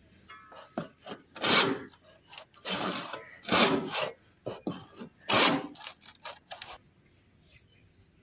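A string of uneven rough scraping strokes, each well under a second, the loudest four spread through the middle, stopping about seven seconds in.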